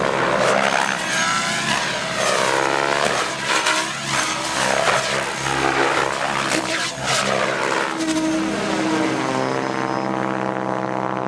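Protos Max Leggero electric RC helicopter flying hard 3D aerobatics: the rotor blades swish and slap in sharp bursts over a steady whine from the motor and gears, the pitch sweeping up and down as it passes. It settles into a steadier whine after about eight seconds.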